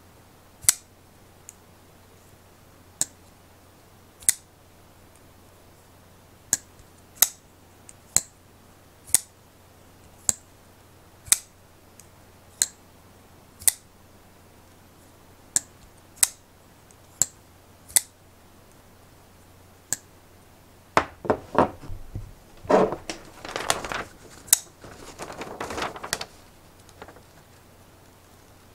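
Rike Knife Knight flipper knife being flipped open and snapped shut again and again, each a single sharp metallic click about once a second. For the last several seconds the clicks give way to paper rustling and rubbing as a booklet is handled.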